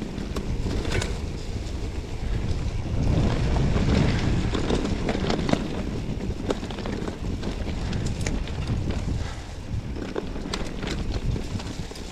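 Wind buffeting the microphone in a steady low rumble while a mountain bike rolls downhill, with scattered sharp clicks and rattles from the bike and trail. The rumble swells to its loudest a few seconds in.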